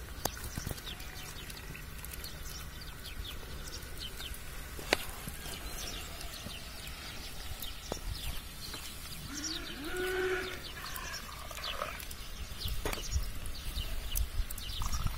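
Small birds chirping again and again, and a farm animal bleating once for about two seconds near two-thirds of the way through, with a few sharp clicks and a low rumble underneath.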